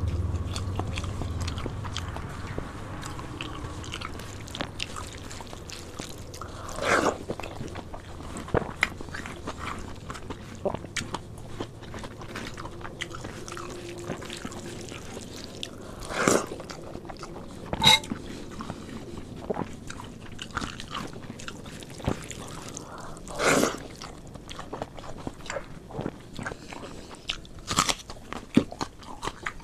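Close-miked chewing of a hand-eaten mouthful of rice and fried side dishes: a steady run of small wet mouth clicks and crunchy bites, with about five louder short mouth sounds spread through.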